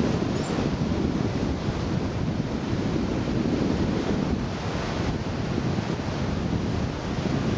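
Surf washing on the shore with wind buffeting the microphone: a steady rushing noise, heaviest in the low end.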